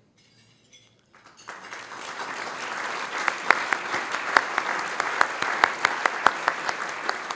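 Audience applauding. It starts about a second in, builds quickly, holds steady with a few louder single claps standing out, and begins to fade near the end.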